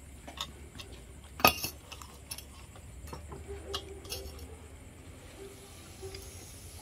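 Spoons and chopsticks clinking and tapping against ceramic bowls while eating: scattered light clinks, with one sharper clink about a second and a half in.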